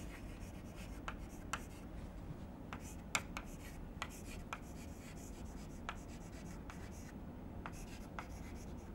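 Chalk writing on a blackboard: faint scratching strokes with irregular sharp taps as each letter is written.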